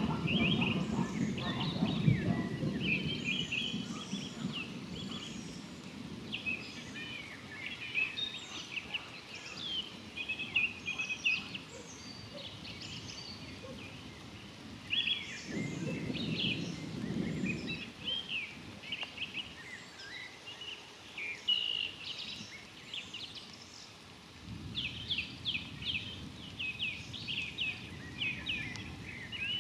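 Birds chirping and singing in short, busy phrases, with distant thunder rumbling low three times: at the start, about halfway through, and again near the end.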